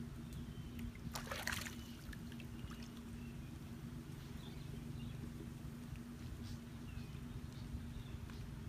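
Creek water sloshing and splashing as a wader works her hands around underwater, with one brief louder splash about a second in. Faint short chirps and a steady low hum run underneath.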